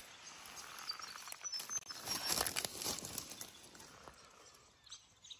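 Footsteps crunching and crackling through dry leaf litter, bark strips and sticks, loudest in the middle and tailing off near the end.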